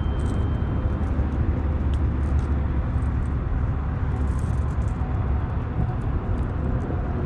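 A steady low rumble, with a few faint light clicks about four to five seconds in.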